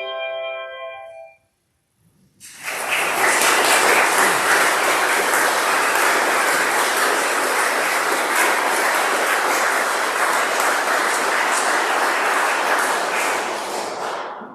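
The last chord of a handbell piece rings and dies away in the first second or so. After a short pause, an audience applauds steadily for about twelve seconds, and the applause cuts off suddenly at the end.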